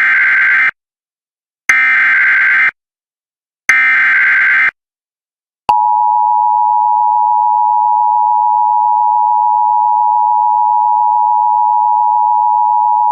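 Emergency Alert System tones: three SAME header data bursts, each about a second long and two seconds apart, then about six seconds in the steady two-tone attention signal starts and holds. Together they announce the start of an emergency alert broadcast.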